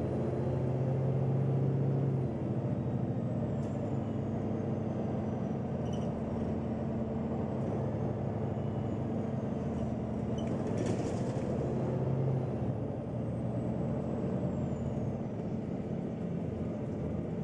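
Interior sound of a Neoplan N 4416 Centroliner city bus under way: a steady engine drone with road noise. The engine note swells over the first couple of seconds and again about twelve seconds in. A short hiss comes about ten and a half seconds in.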